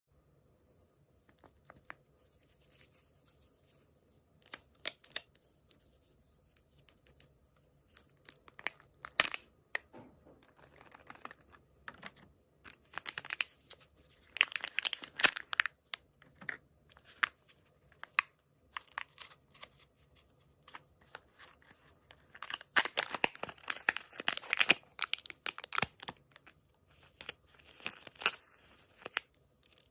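Crinkling, tearing and clicking of surprise-egg packaging being unwrapped and opened close to the microphone, in irregular bursts with short pauses between.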